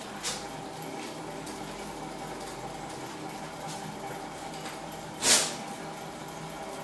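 Small Stirling engine running with a steady hum and faint scattered ticks. A short, louder rushing click about five seconds in.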